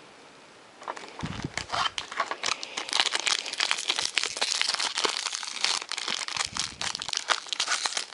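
Plastic-and-foil trading card pack wrapper being torn open and crinkled by hand, a dense run of crackles and rustles that starts about a second in.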